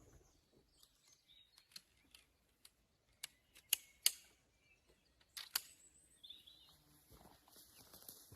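Several sharp clicks, the loudest two close together about four seconds in and another pair a second and a half later, with faint chirps between them.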